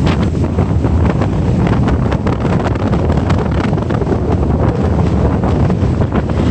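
Gale-force wind buffeting the microphone: a loud, steady low rumble broken by many short gusty crackles.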